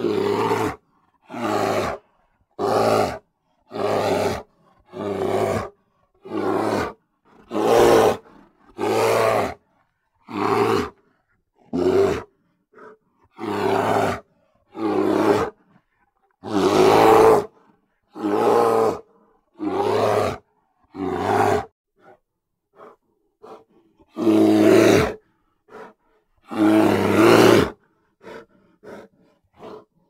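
Grizzly bear roaring over and over in short roars about a second apart, with silence between. In the second half come a few longer, louder roars, between shorter, fainter grunts, and short faint calls near the end.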